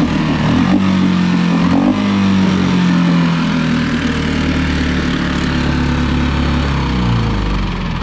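Small Mercury four-stroke single-cylinder outboard running steadily on its new replacement carburetor, its lower unit in a bucket of water. The engine speed rises about a second in, holds, then drops back near the end.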